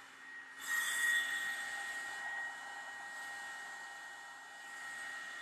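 Revlon One-Step hair dryer brush running, a steady motor whine over the hiss of blowing air as it is drawn through the hair. The sound drops away for a moment near the start, then comes back louder about a second in.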